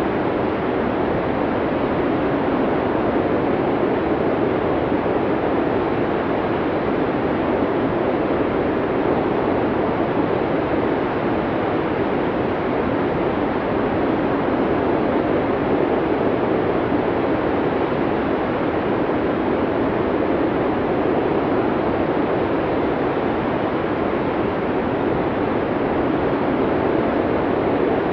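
Snowstorm wind: a steady, even rushing noise with most of its weight low in the middle range, holding level without gusts or breaks.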